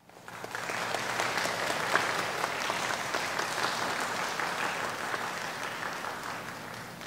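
Audience applauding in a concert hall, building up within the first second and dying away near the end.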